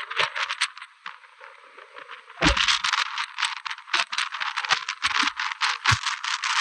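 Hurricane-force wind and wind-driven rain battering the microphone, heard as a rapid, irregular crackling rattle with the deep sound cut away. It eases for a moment about a second in. Deep buffets of wind hit about two and a half seconds in and again near the end.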